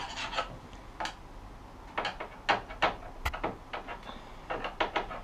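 Irregular sharp clicks and knocks, about a dozen spread over five seconds, from hand work on a broken kitchen cupboard door: the door, its screws and a hand tool knocking against its fittings as it is repaired.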